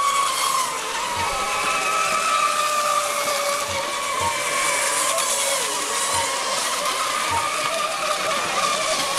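Several racing radio-controlled monohull model boats running at speed, their motors making overlapping high whines that drift slowly up and down in pitch, over the hiss of spray off the hulls.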